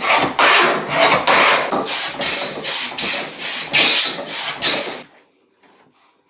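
Metal hand plane taking quick, heavy strokes along a pine board to thickness it, the blade shearing off thick shavings, about two strokes a second, stopping about five seconds in.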